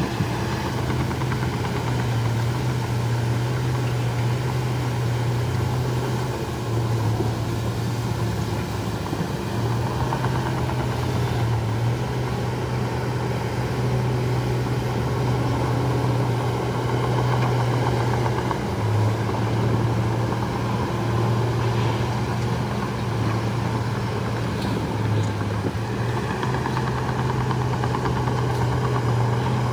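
Heavy diesel engine of earthmoving machinery running steadily with a low, even drone.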